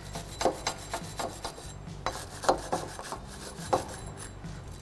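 Hand wire brush scrubbing light surface rust off a car's front wheel hub in quick back-and-forth rasping strokes, about three a second.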